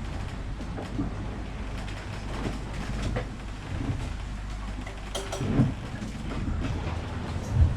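The cabin of a sailing yacht creaking and rattling as the boat rolls in a seaway, over a steady low hum, with a couple of louder knocks about five and a half seconds in and near the end.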